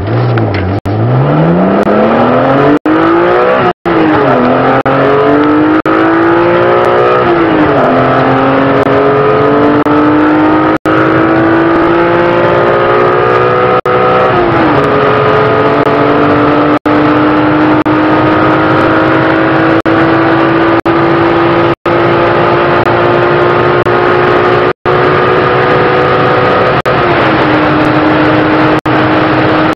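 BMW E36 M3's straight-six engine under full throttle, heard from inside the cabin, its pitch climbing steadily through each gear. There are upshifts about 4, 7, 14 and 27 seconds in, each marked by a sudden drop in pitch, and the car reaches about 240 km/h. The sound cuts out for an instant several times.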